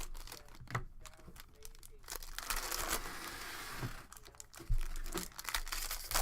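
Plastic trading-card packaging being torn open and crinkled by hand, in irregular rustles and small snaps, with a denser stretch of crinkling about two and a half seconds in.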